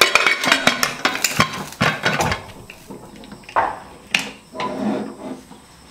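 Metal pressure cooker lid clattering against the pot's rim as it is fitted inside and locked with the handle: a dense run of metal clanks for about two seconds, then a few separate knocks.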